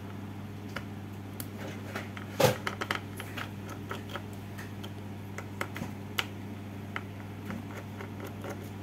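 Small clicks and taps of a screwdriver working out screws from the metal plate over a circuit board, with one louder knock about two and a half seconds in, over a steady low hum.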